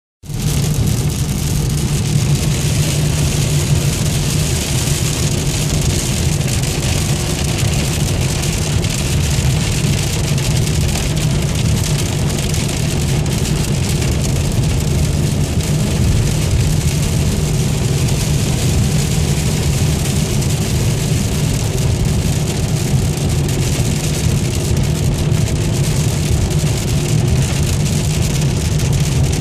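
Inside a car's cabin at highway speed in heavy rain: a steady low drone of engine and road noise under an even hiss of rain on the windshield and tyres on the wet road.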